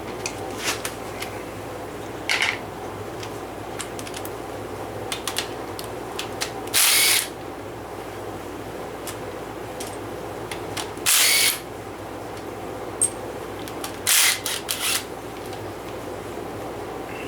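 A power tool running in short bursts of about half a second, four times, with light metallic clicks and taps of tools and parts between the bursts, during work on a Chevrolet 350 small-block engine.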